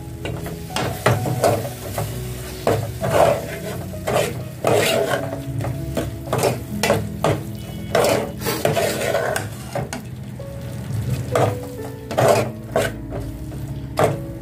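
Metal ladle scraping and knocking around an aluminium pot in irregular strokes, several a second, as masala is stirred, with a sizzle underneath. The masala is being fried until the oil separates.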